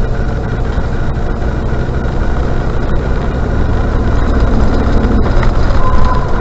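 Range Rover Classic running, with a steady low engine and road noise, and a brief thin squeal from its brakes about six seconds in.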